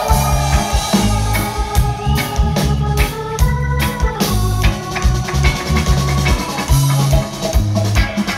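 Live reggae band playing: held chords over a heavy bass line and regular drum hits.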